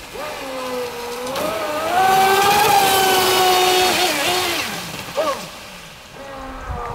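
HydroPro Inception RC racing boat's water-cooled brushless electric motor and propeller whining at speed, the pitch rising and falling as it turns. It is loudest as it passes close, about two to four seconds in, with a hiss of spray, then fades and comes back near the end.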